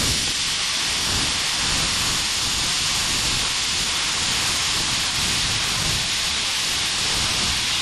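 Plasma cutter running steadily as it cuts through steel plate: a loud, even hiss of compressed air and arc.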